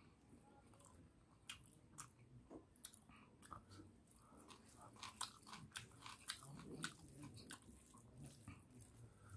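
Quiet close-up chewing and biting of cooked cow intestines and rice: a run of short wet clicks and smacks that gets busier about five seconds in.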